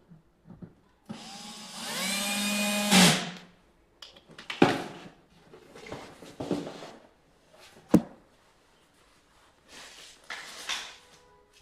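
A small electric motor whirs, rising in pitch and then holding for about two seconds before it stops suddenly. Sharp clicks and short rustling handling noises follow.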